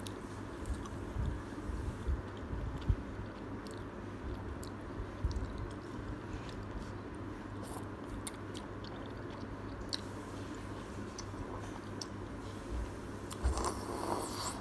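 Close-up eating sounds from thick udon noodles in broth: small wet chewing and mouth clicks, then a short slurp as a noodle is drawn in near the end.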